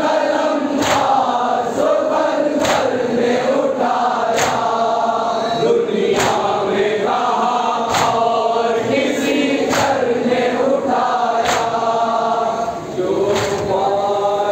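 A crowd of men chanting a nauha (Shia mourning lament) in unison, with a sharp collective chest-beat (matam) about every two seconds, eight strikes in all, keeping time with the chant.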